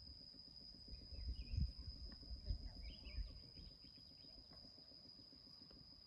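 Faint forest ambience with a steady high insect drone. A few soft low bumps and small faint chirps come between about one and four seconds in.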